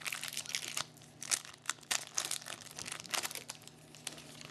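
Plastic wrapper of a hockey trading card pack crinkling as the pack is opened and handled: a rapid run of short crackles that thins out near the end.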